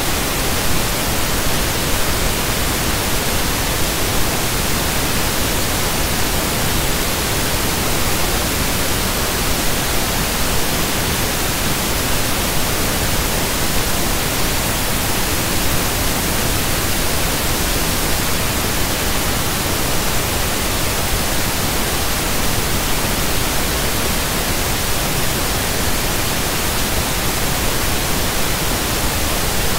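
Loud, steady static hiss, spread evenly from low to high pitch with no other sound over it.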